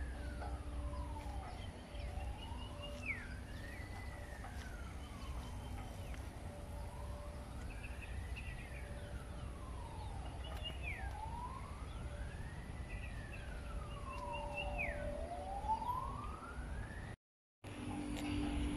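Emergency vehicle siren in a slow wail, rising and falling in pitch about every four seconds. Short falling whistles come near each peak, over a low rumble.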